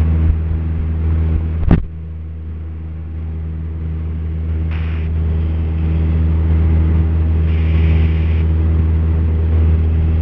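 Cessna 172P's four-cylinder Lycoming engine and propeller running as a steady drone in the cockpit during the climb after takeoff. A sharp click comes a little under two seconds in, after which the sound is briefly quieter and then builds back up.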